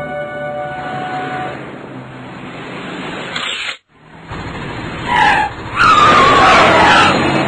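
Cartoon car sound effects: a car engine running as a car drives off. After a short break, another car comes in fast with a loud, wavering tyre screech near the end.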